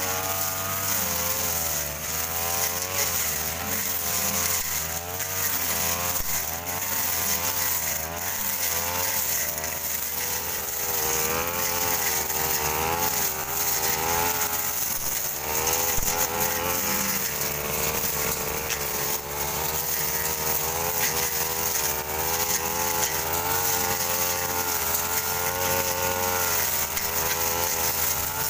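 Backpack brush cutters running, their engine note wavering up and down about every half second as the cutting head is swung through ferns and undergrowth.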